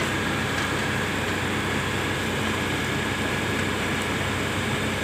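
Heavy diesel machinery running steadily at a constant pitch, with a faint high steady whine above the engine note.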